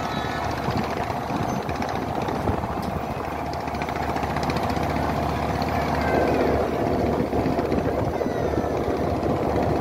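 River passenger launch's engine running steadily with a continuous rumble, growing louder about six seconds in.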